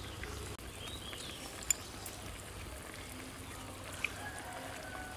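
Soup being eaten from bowls with chopsticks: quiet slurping and chewing, and two sharp clicks of chopsticks on a bowl, one about a second and a half in and one near four seconds in. Faint bird chirps come through behind.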